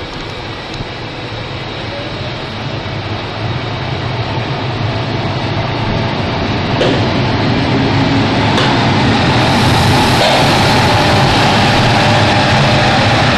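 Passenger train of Silberling coaches running past, a steady rumble of wheels on rails with a couple of clicks from the wheels over the track. It grows louder as the electric locomotive at the rear draws near.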